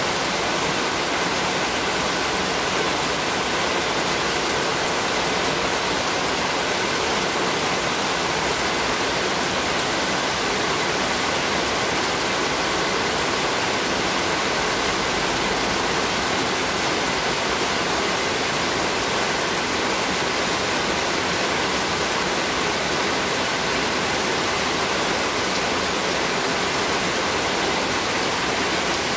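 Heavy rain pouring down steadily, a dense, unbroken hiss of a downpour.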